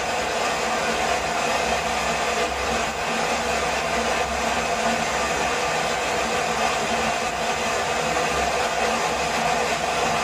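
Waterfall rushing, a steady loud roar of falling water that does not let up.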